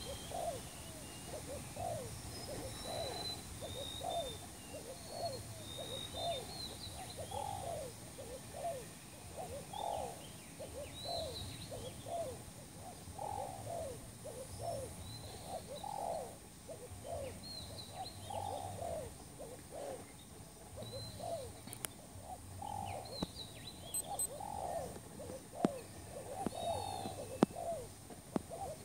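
Spotted doves cooing over and over, short low coo notes about two a second, with small birds chirping higher above them. A few sharp clicks near the end.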